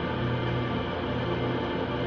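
Slow ambient background music with sustained low tones.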